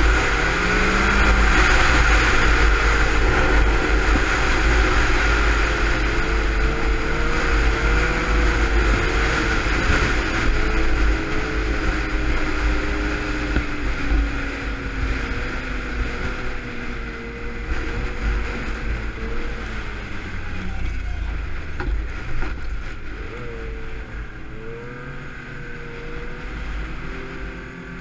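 Yamaha snowmobile engine running under way, with wind rumbling on a helmet-mounted camera's microphone. The engine note wavers, then eases off and drops in pitch around the middle, and grows quieter toward the end.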